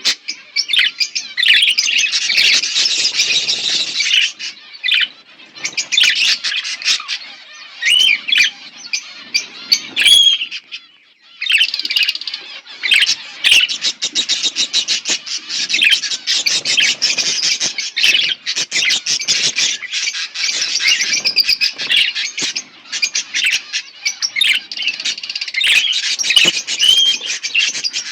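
Several budgerigars chirping and chattering in fast, high-pitched overlapping runs of warbles, squawks and clicks, with a short lull about ten seconds in.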